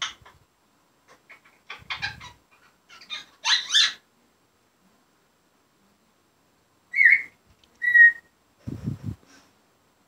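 African grey parrot vocalising: clicky chatter, then a quick rising whistle about four seconds in. After a pause come two short whistled notes about a second apart and a brief lower, rougher sound near the end.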